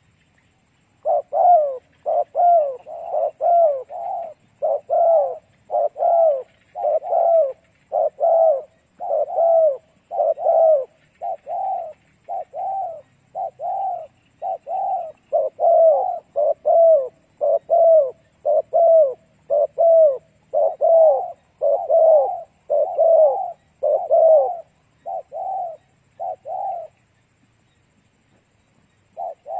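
Spotted dove (cu gáy) giving a long run of quick coos, a little over one a second, each a short note that drops in pitch. This rapid 'gù' cooing is the call used to provoke wild male doves. The cooing breaks off briefly near the end, then starts again.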